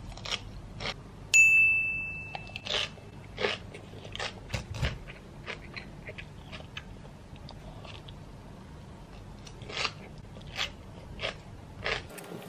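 Close-up chewing of crisp raw salad greens and sprouts: a run of short crunching bites. About a second and a half in, one loud bright ding rings out and fades over about a second.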